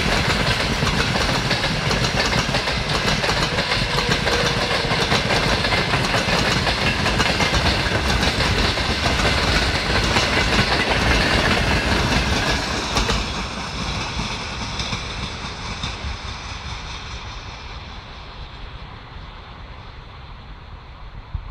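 Loaded freight wagons rolling past close by, their steel wheels rumbling and clattering over the rail joints. About 13 seconds in the last wagons go by and the sound fades steadily as the train pulls away.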